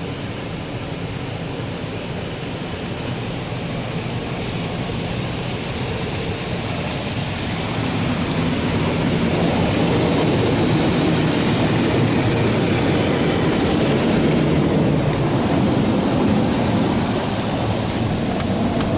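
Automatic soft-touch car wash gantry working over the truck: a steady rushing noise, heard from inside the cab, that grows louder about eight seconds in.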